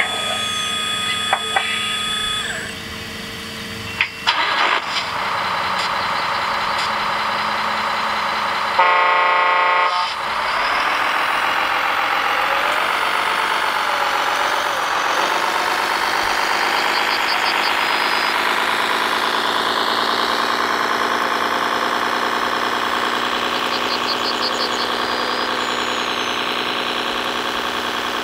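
Simulated diesel engine sound from an RC model truck's sound module, with a short horn blast about nine seconds in; from about ten seconds the engine sound runs steadily, rising and falling a little in pitch.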